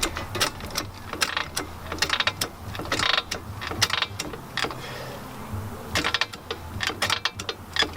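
Ratcheting clicks of a Phillips screwdriver working the screws out of a car's plastic mud guard, an irregular run of quick clicks and ticks.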